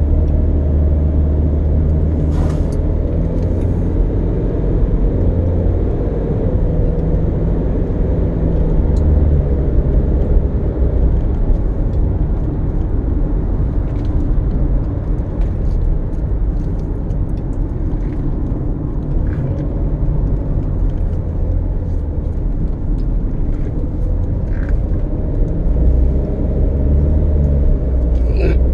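A car driving, with a steady low engine and road rumble and a few faint clicks.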